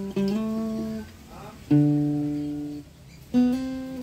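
Guitar playing a slow single-note melody phrase: three plucked notes about a second and a half apart, each left to ring and fade, the first and last slid up slightly in pitch.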